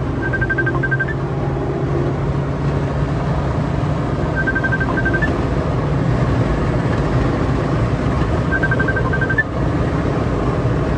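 Car interior noise at speed: a steady low engine and road rumble. A short run of high-pitched beeps repeats about every four seconds.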